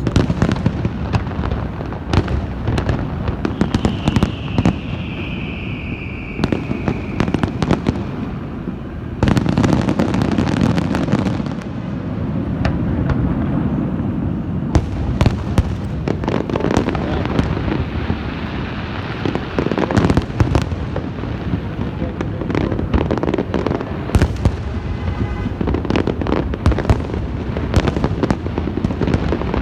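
Fireworks going off in a dense, continuous barrage of bangs and crackling, with a falling whistle a few seconds in.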